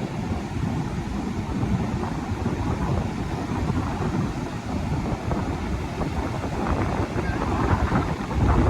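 Strong sea wind buffeting the microphone in gusts, a dense low rumble that grows a little louder near the end.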